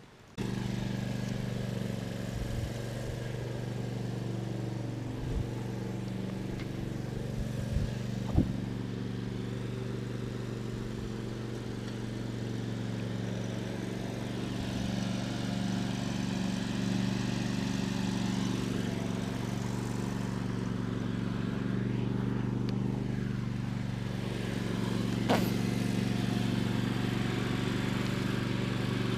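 An engine idling steadily with an even, unchanging hum, and a couple of faint knocks.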